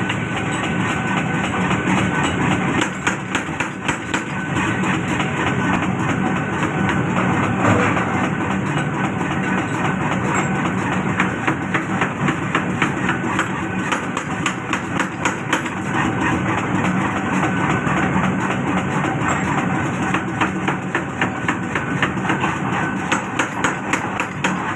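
Forging machinery in a wheel-bolt forging shop running steadily, with rapid, irregular knocking several times a second over a continuous mechanical din.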